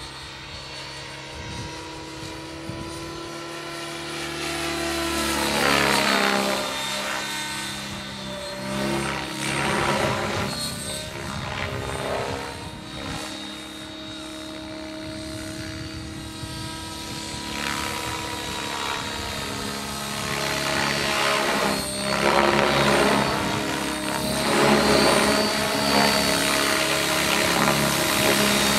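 Blade 700X electric RC helicopter flying 3D aerobatics: a steady whine from the motor and gears under the main rotor's whoosh, which swells loudly again and again as the helicopter manoeuvres. The surges are strongest about six and ten seconds in and through the last several seconds.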